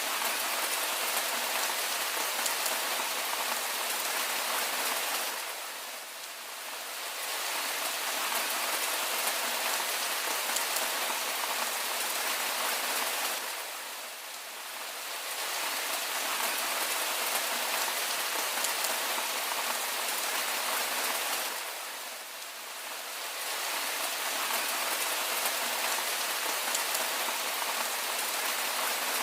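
Steady rain falling, an even hiss with faint scattered drop ticks. The rain sound dips in level for a second or two about every eight seconds, then comes back as before.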